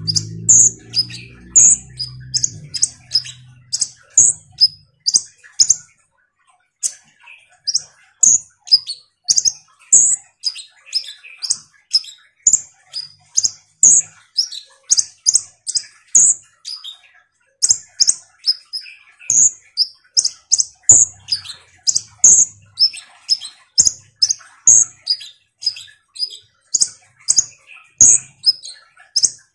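Male kolibri ninja (Van Hasselt's sunbird) singing a long run of short, sharp, high-pitched chirps, about two a second, with a couple of brief pauses.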